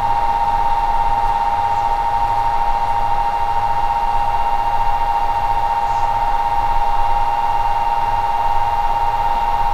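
Three MPT-7210A MPPT solar charge controllers running under load: a steady high electrical whine with a low hum that throbs a couple of times a second.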